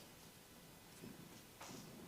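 Near silence, with a few faint soft rubbing sounds from hands working over skin during a massage.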